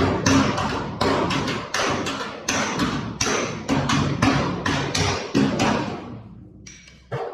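Hammer and dolly striking a car's steel body panel, about three blows a second, to bump out low spots in the sheet metal. The blows stop about six seconds in, with one more strike near the end.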